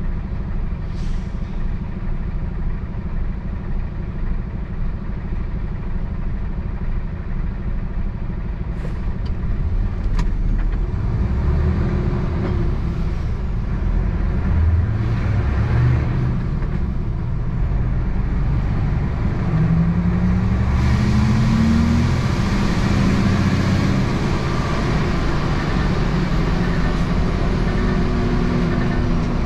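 Truck's diesel engine running on the move, a steady low rumble that from about ten seconds in climbs in pitch in several steps as the lorry accelerates through the gears, with road noise growing louder in the second half.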